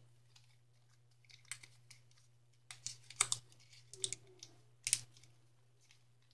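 Thick origami paper being folded and creased by hand: a scattered run of soft crinkles and clicks between about one and five seconds in.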